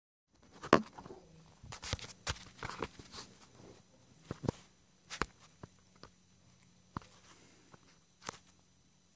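Handling noise: irregular light knocks, clicks and short rustles, about a dozen scattered through, over a faint steady low hum.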